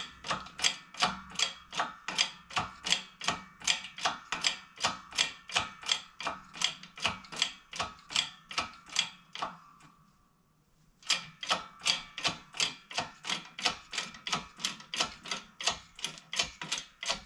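Ratchet wrench clicking evenly, about three clicks a second, as it is worked to press the small toe-link pillowball bushing out of its suspension arm. It stops for about a second near the middle, then carries on.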